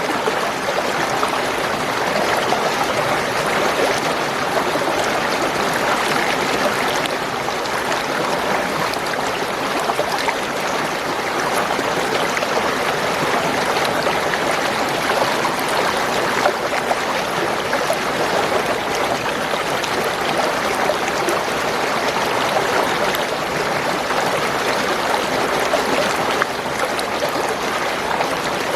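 Spring water flowing and gurgling, a steady stream sound.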